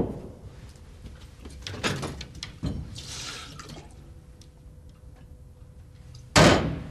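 Kitchen tap run for about half a second, filling a glass with water, between scattered knocks. A loud bang sounds at the very start and another about six and a half seconds in.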